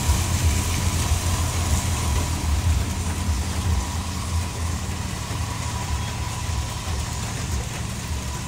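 Low, throbbing engine drone of a box truck and a car driving away up a wet mountain road, slowly fading.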